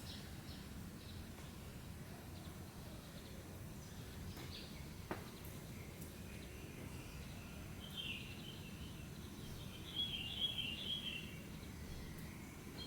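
Steady low outdoor rumble with a single click about five seconds in. A small bird chirps in short bursts about two-thirds of the way through, and again more strongly a couple of seconds later.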